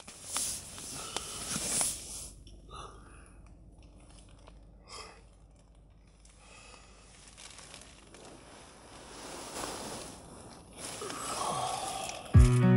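Rustling and crinkling, as of fabric or plastic being handled, in a few bursts with quieter stretches between. Acoustic guitar music starts just before the end.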